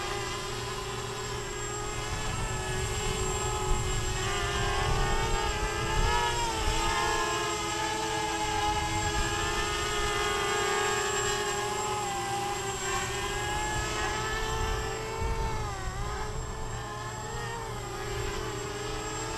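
Tarot 250 quadcopter's four Emax brushless motors and propellers whining in flight, the pitch rising and falling as the throttle changes, with wind rumbling on the microphone.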